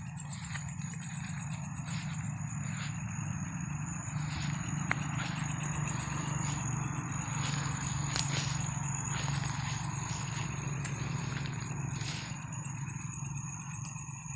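Night insects calling steadily: one high continuous tone with a faster pulsing chirp above it, over an irregular rustle and scattered light clicks as leaves are brushed and pushed aside.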